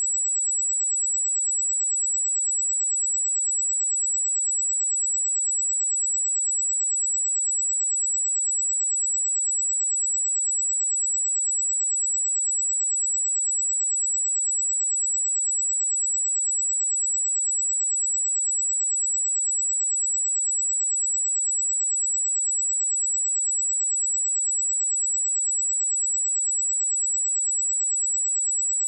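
Steady 7797 Hz sine-wave test tone, a single high-pitched pure tone held at constant level.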